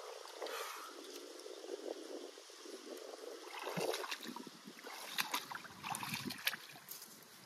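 Pond water sloshing and splashing, with rustling and several short, sharp clicks in the second half.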